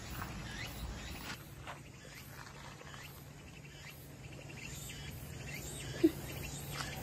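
Faint outdoor ambience of insects chirping in a fast pulsing pattern, with a few short chirps. A low steady hum comes in partway through, and a brief, louder short sound stands out about six seconds in.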